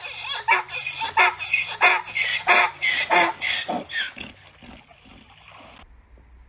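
Donkey braying: a run of rhythmic calls, about three a second, that tails off about four seconds in.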